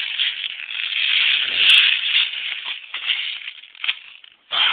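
Airsoft BBs rattling as the gun is handled and refilled, with one sharp click a little under two seconds in.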